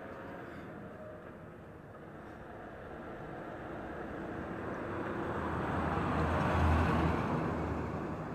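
Concrete mixer truck approaching and passing close by on the road: engine rumble and tyre noise build for several seconds, peak about two-thirds of the way in, then ease as it moves away.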